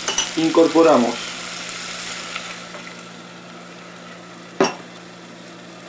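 A flour-and-water mixture hitting hot oil with grated onion and garlic, sizzling as it is stirred with a wooden spoon. The sizzle dies down over the first few seconds to a quiet steady hiss. A single sharp knock comes about four and a half seconds in.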